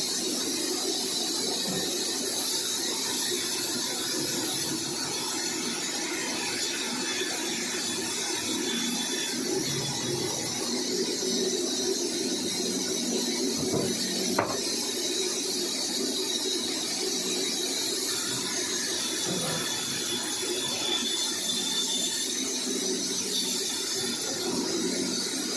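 Sawmill saw running steadily with an even, unchanging mechanical noise and hum, and one sharp click about fourteen seconds in.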